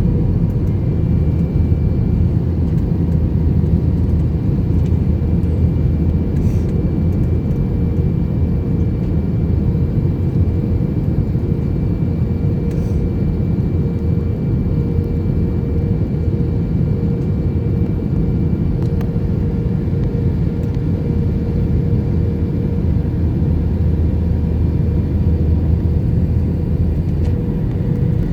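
Steady cabin noise inside an Airbus A321 airliner in flight: an even, deep rush of engine and airflow noise with a faint steady hum.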